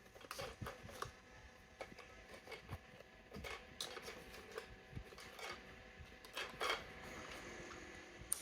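Irregular light clicks and taps from a toy RC car and its packaging being handled during unboxing.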